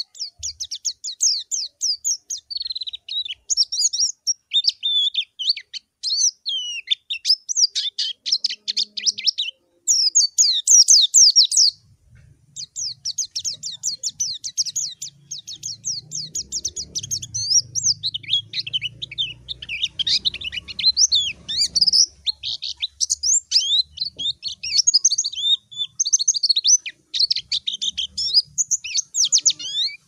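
White-eye (pleci) singing a fast, unbroken stream of high chirps and twittering trills, with a short pause about twelve seconds in. It is the white-eye's rival-calling song, used to challenge an opponent.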